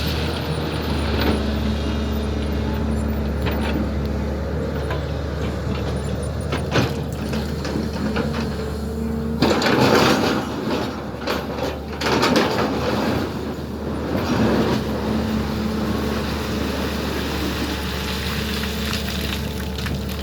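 SANY excavator's diesel engine running steadily under work, with two or three louder rushing, hissing stretches about halfway through.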